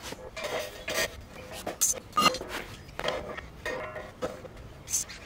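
Steel box-section tubing clanking and knocking against a steel frame as pieces are handled and set in place, several separate metallic clinks with a short ring.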